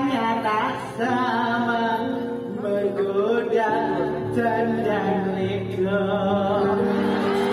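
Music: a voice singing a wavering, ornamented melody over held accompanying notes.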